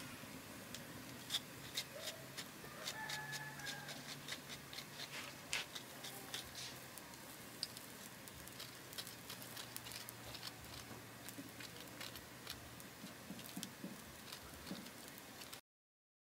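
Wood fire crackling with faint, irregular sharp pops and clicks, cutting off suddenly near the end.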